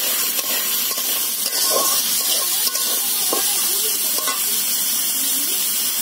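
Sliced onions, garlic and green chilies sizzling in hot oil in a metal wok, stirred with a metal spatula that scrapes against the pan a few times over a steady sizzle.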